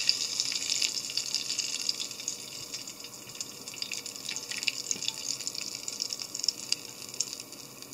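Hot oil sizzling and crackling in a frying pan just taken off the heat, dying down gradually.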